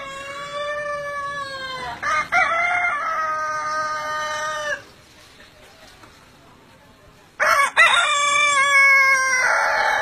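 Roosters crowing: one long, drawn-out crow of nearly five seconds with a brief catch partway through, a short pause, then a second long crow beginning about seven and a half seconds in.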